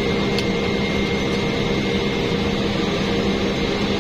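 Cabin noise of a Cessna Caravan's PT6A turboprop engine and propeller as the plane taxis: a loud, steady drone with a thin high whine.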